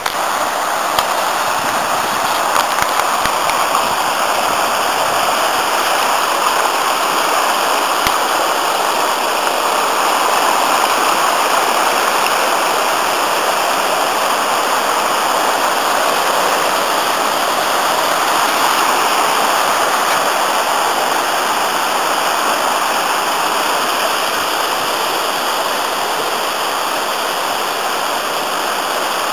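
The Afon Artro swollen by heavy rain, rushing loudly and steadily over rocky rapids.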